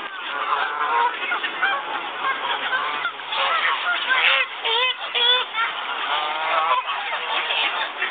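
A flock of waterfowl calling all at once: a continuous din of many overlapping calls, some rising and falling in pitch, with no pause.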